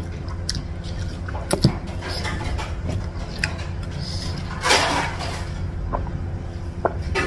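Close-miked eating sounds: scattered mouth clicks and smacks as fingers are licked, a brief noisy burst about five seconds in, then a few swallowing clicks as water is drunk from a plastic bottle, over a steady low hum.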